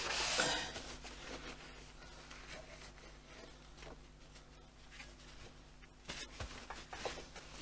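Cloth rubbing over the plastic bed and casing of a sewing machine as it is wiped down, loudest in the first second and then fainter. There are a couple of light knocks near the end.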